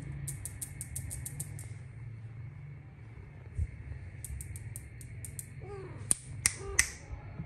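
Two runs of light, rapid high ticking, about six a second, then near the end three sharp finger snaps close by, with a brief pitched sound among them.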